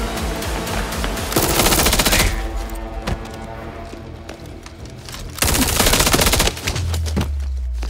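Two bursts of rapid automatic gunfire, each about a second long, over background music: the first a little over a second in, the second just past the middle. A deep bass tone comes in near the end.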